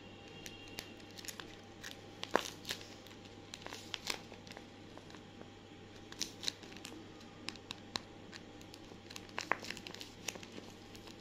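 Paper blind bag covered in clear tape crinkling and crackling as fingers squeeze and turn it, in irregular sharp crackles with one louder crackle about two seconds in.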